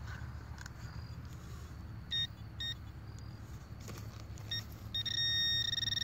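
Handheld metal-detecting pinpointer beeping as it is swept along the side of a dig hole: two short beeps about two seconds in, another past four seconds, then a steady tone for about a second near the end, signalling metal in the hole wall.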